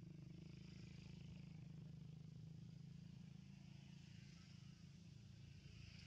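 Near silence: a faint steady low hum, with faint insects buzzing that swell and fade slowly.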